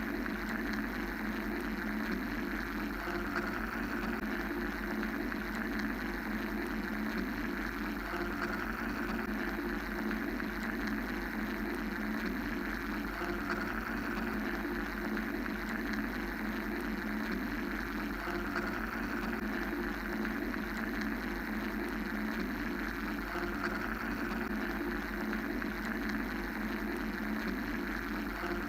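Steady mechanical white-noise drone, a continuous hum and hiss with no breaks, its upper hiss swelling and easing gently about every six seconds.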